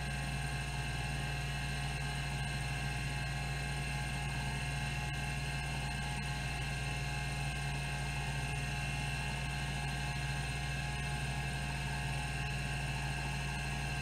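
Rodime RO252 10 MB hard disk drive running, its platters spinning at 3600 RPM with a steady hum and several high whining tones. Its band-driven stepper motor chatters continuously as it steps the heads back and forth through a seek test.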